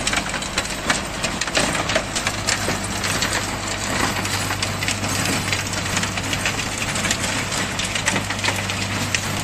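Tractor's diesel engine running steadily under load while the Mahindra rotavator behind it churns dry soil and weeds, with a constant crackle and clatter from the blades and breaking clods over a low engine hum.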